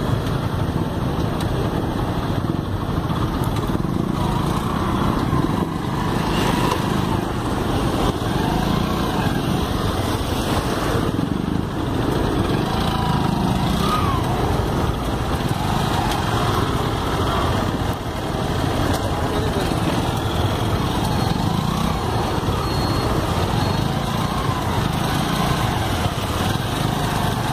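A vehicle running steadily, with the buzz of a small engine over a constant low rumble.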